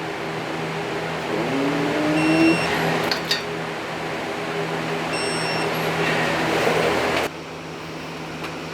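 Steady mechanical hum with a short rising squeak about two seconds in and brief high-pitched squeals twice, near two and five seconds; the hum drops abruptly a little past seven seconds.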